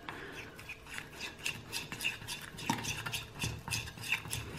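A metal spoon stirring melted white chocolate and yogurt in a ceramic bowl, with a quick run of light scrapes and clinks against the bowl.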